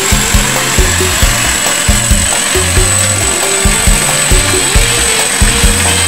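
Background music with a steady beat and a bass line moving in held notes, from a song laid over the footage, with a thin steady high-pitched tone over it.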